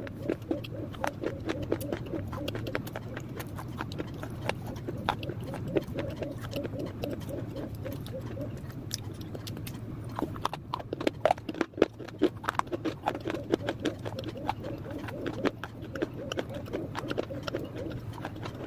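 Dry clay pieces being bitten and chewed: a continuous run of sharp, irregular crunches and crackles over a steady low background sound.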